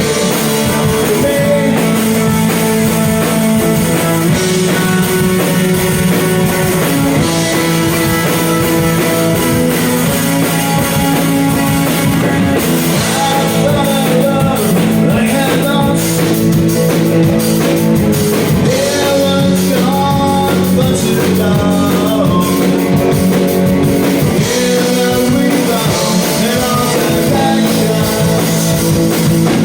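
Rock music played by a band with electric guitar and drum kit, loud and continuous.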